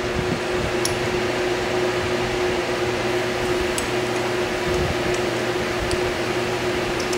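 Steady machine hum with one constant tone, like a fan or air conditioner running, with a few faint light clicks scattered through it.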